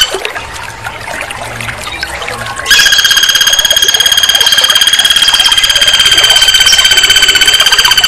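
A red-crested woodpecker's rapid, even-pitched rattling trill. It starts about a third of the way in and runs on loud and steady for over five seconds, with only faint short chips before it.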